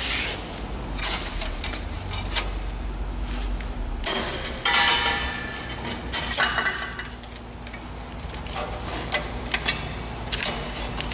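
Metal parts clinking and clanking, with two short squealing screeches in the middle, over a low steady machine hum.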